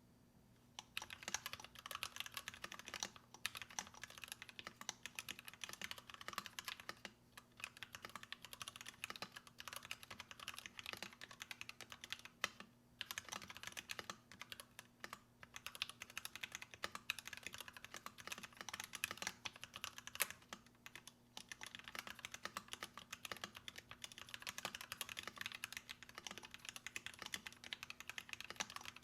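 Continuous fast typing on a mechanical keyboard with lubed Gateron Black Ink linear switches and PBT keycaps. The typing starts about a second in and pauses briefly a few times. A faint steady electrical hum runs underneath.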